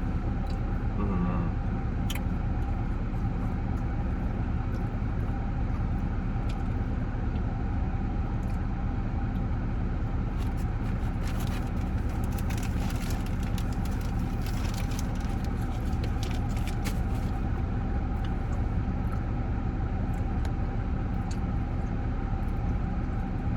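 Steady low hum of a car engine running, heard from inside the cabin, with scattered light clicks and rustles in the middle stretch.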